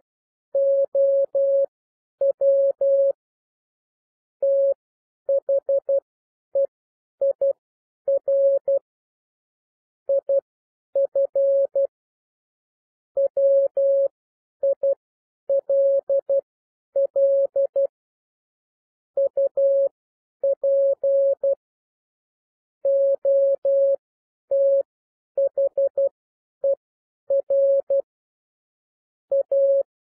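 Computer-generated Morse code: a single steady beep a little above 500 Hz keyed on and off in dots and dashes at 12 words per minute, with short gaps between letters and longer pauses between words. It spells out common English words such as how, their, if, will, up and other.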